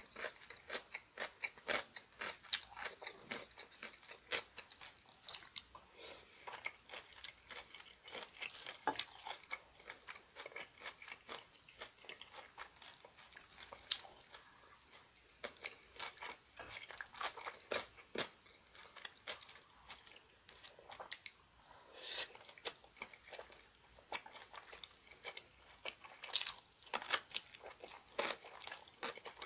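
Close-miked chewing and crunching of food: rice balls soaked in spicy chicken-feet broth and crunchy chonggak radish kimchi. Irregular sharp crunches come close together, mixed with softer wet chewing.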